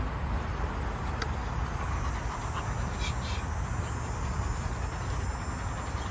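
Steady low outdoor background rumble with a few faint ticks, about a second in and around three seconds in.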